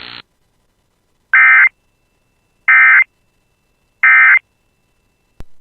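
Emergency Alert System SAME data bursts: three short, identical bursts of buzzy digital tones about a second apart. They are the end-of-message code that closes the alert.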